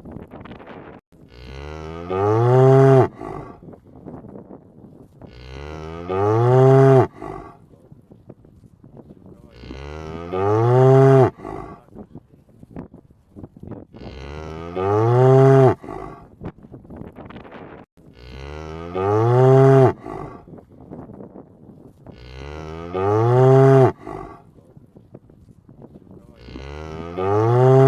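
Cow mooing: the same call about every four seconds, seven times, each call about a second long, rising and then falling in pitch.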